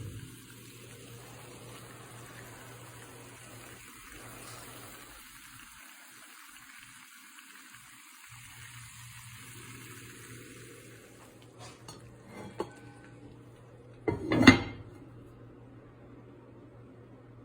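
Steady sizzling hiss of chicken cooking in a pan, then a few light clinks and one loud clatter of cookware about fourteen seconds in.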